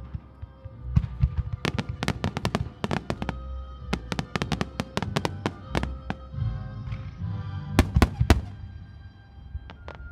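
Aerial fireworks bursting in rapid succession, a dense run of sharp bangs and crackles over a low rumble. The loudest cluster of reports comes about eight seconds in, then the bangs thin out. Music with sustained notes plays underneath.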